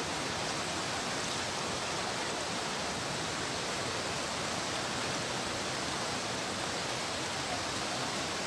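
Flash-flood water rushing past in a fast, muddy torrent: a steady, even rushing noise.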